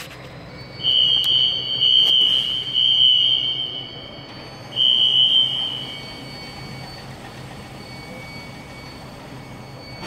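Hangar fire alarm sounding a loud, high-pitched steady tone: first for about three seconds starting about a second in, then again for about a second after a short break. Fainter high tones and a steady low hum carry on after it stops.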